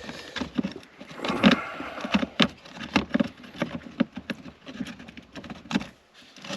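Irregular clicks, knocks and light rattles of hands working plastic parts and switch pieces loose inside a car's dashboard.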